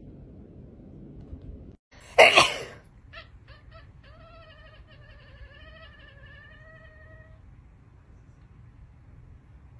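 A loud, short noisy burst about two seconds in. Then a few short clipped cat calls, and one long meow lasting about three seconds from a ginger cat, its pitch wavering up and down.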